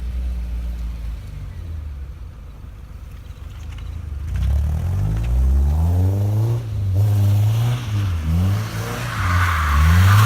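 Car engine running low and steady, then accelerating, its pitch climbing and dipping back several times as it gathers speed, with rising road and wind noise near the end.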